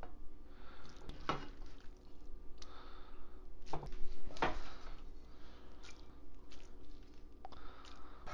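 Serving spoon scooping shrimp and orzo out of an enameled pot and dropping it onto plates: soft wet squishes with a few sharp clinks of the spoon against the pot and plates.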